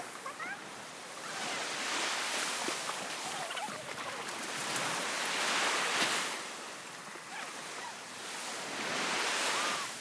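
Small waves breaking and washing up a sandy beach, the surf swelling and easing three times.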